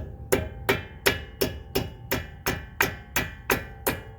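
Hammer tapping a steel pad-retaining pin into a Brembo front brake caliper, about three sharp, ringing metallic taps a second in a steady rhythm.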